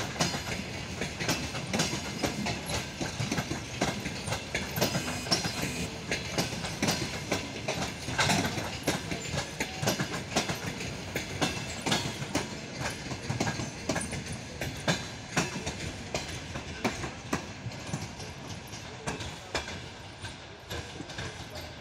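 Passenger coaches rolling past, their wheels clattering in an uneven run of knocks and clicks over the rail joints, fading over the last few seconds as the train pulls away.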